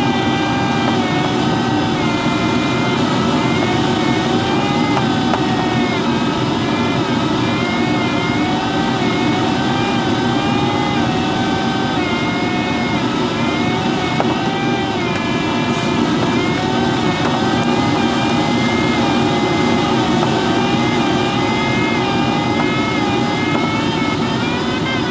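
Steady rush of air over the canopy of a Schleicher ASW-15b glider in flight, with the audio variometer's tone wavering slowly up and down in pitch as the glider meets lift and sink.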